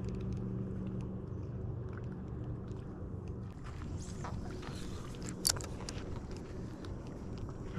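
A motorboat engine droning steadily, loudest for about the first second and then fainter but continuing throughout. A single sharp click comes about five and a half seconds in.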